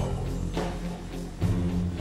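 Trailer background music: sustained low guitar chords with a short hit about once a second.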